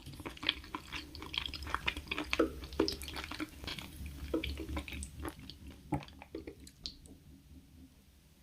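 Close-miked eating sounds: wet chewing and mouth smacks as a series of irregular short clicks, thinning out and going quieter near the end.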